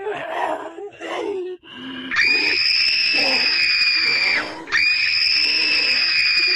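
Horror sound effect: rough growls for about two seconds, then two long, piercing shrieks, each held at one high pitch for about two and a half seconds and falling off at the end.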